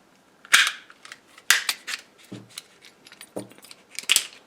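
A relay's plastic housing being pried and broken apart by hand: a series of about half a dozen sharp cracks and clicks, unevenly spaced.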